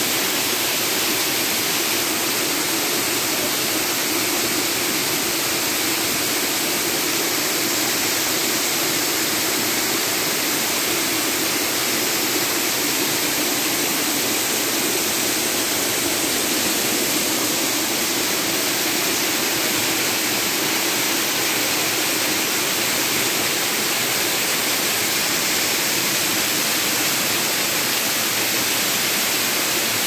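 Waterfall pouring and splashing over rock: a steady, even rush of falling water.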